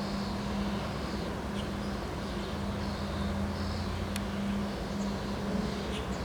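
Wind buffeting the microphone in a steady low rumble, under a constant low hum and a few faint bird chirps.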